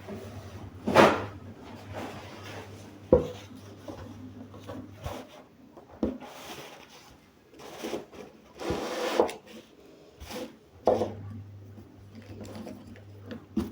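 Kitchen food-preparation handling: irregular sharp knocks every second or two, with rubbing and rustling between them, as food and utensils are worked on a hard kitchen surface. A low steady hum runs under the first few seconds and comes back near the end.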